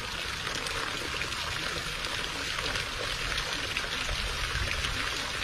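Steady splashing of a thin stream of water falling into a full tub of water.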